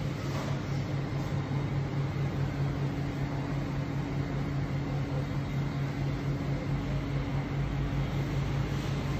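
Steady low electrical hum of a shop's refrigeration and ventilation equipment, one droning tone over a background hiss, with a deeper rumble getting a little louder near the end.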